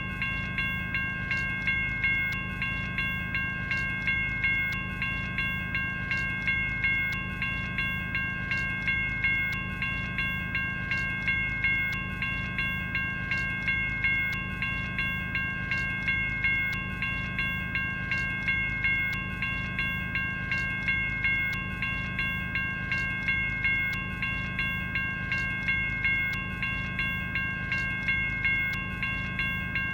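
General Signals Type 1 electronic grade-crossing bell ringing. It strikes at a steady, quick rate, each strike ringing with several bright tones that carry on into the next, over a low hum. It is the warning bell of an active railroad crossing signal.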